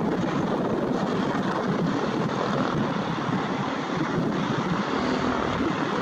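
Jet engines of a Boeing 787-9 Dreamliner airliner running on the runway, a steady, even rushing noise that holds at one level throughout.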